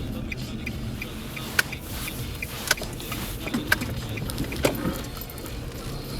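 A 2003 Nissan Altima 2.5S's four-cylinder engine running as a steady low rumble. A light ticking about three times a second fades out around a second in, and a few sharp clicks come later.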